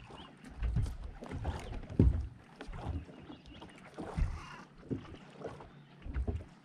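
Irregular thumps and knocks on a bass boat's deck, the loudest about two seconds apart, as a man kneels to unhook a fish, with a few sharp clicks between them.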